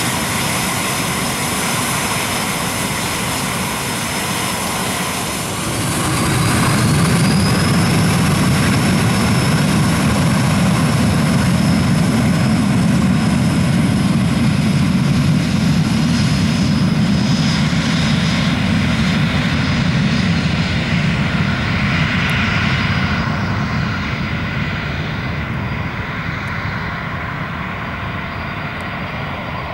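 Cessna 525 CitationJet's twin turbofan engines during takeoff: a steady jet roar with a high whine. About six seconds in the whine climbs in pitch and the roar swells as the engines spool up. Over the last several seconds the sound fades and loses its high end as the jet moves away.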